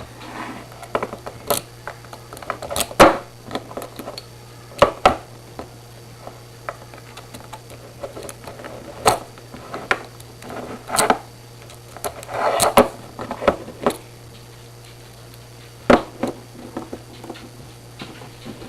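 Homemade lock pick and tension wrench working in a Master padlock's keyway: irregular small metal clicks, rattles and short scrapes. A steady low hum runs underneath.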